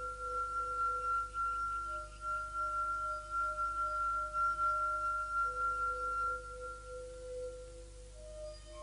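Ambient background music of held, ringing pure tones. A high note sounds through most of it while lower notes change beneath it, and the high note fades out shortly before a new one comes in near the end.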